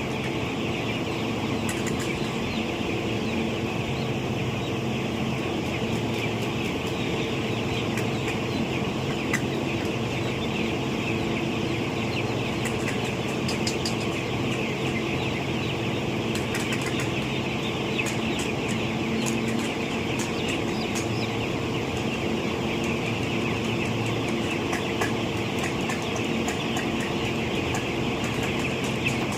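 A large flock of broiler chickens in a poultry shed: a steady, dense din of many birds chirping and clucking together, with scattered sharp ticks and a steady low hum underneath.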